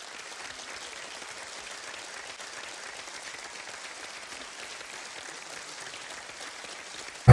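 Audience applauding, a steady even wash of clapping.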